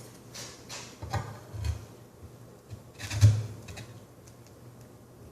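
Handling noises from copper pipe, fittings and tools being moved and set down: a few light knocks and scrapes, the loudest about three seconds in.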